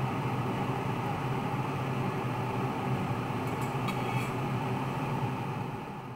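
Pan of long beans and garlic boiling in water on the stove: a steady hiss with a low hum under it, and a few faint clicks near the middle.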